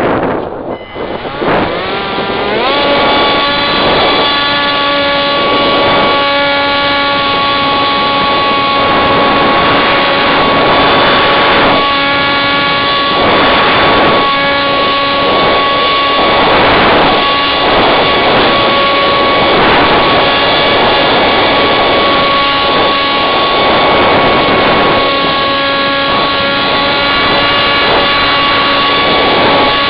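Onboard electric motor and propeller of a Firebird Scout RC plane, winding up to a steady, high whine about two seconds in as the throttle comes on, with wind rushing over the onboard microphone in swells.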